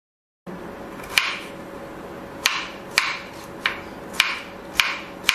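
Kitchen knife chopping peeled chayote into cubes on a plastic cutting board: about seven sharp knocks of the blade on the board, roughly half a second apart, starting after a brief silence.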